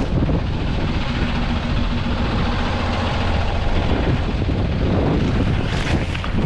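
Wind buffeting the microphone in a steady low rumble, with a truck engine running underneath.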